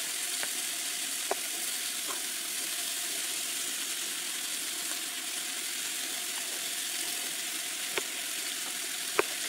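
Onions and bell peppers sizzling steadily in a cast iron skillet, a constant frying hiss. A few light knife taps on a plastic cutting board come through now and then.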